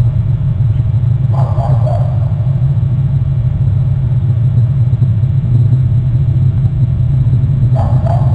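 A steady low rumble picked up by an outdoor webcam microphone, with two short, louder mid-pitched noises about a second and a half in and again near the end.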